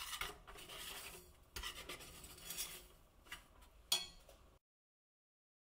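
Kitchen utensil scraping and stirring in a pot of sugar for caramelizing, with irregular gritty scrapes and a sharp clink near the end. The sound then cuts out abruptly.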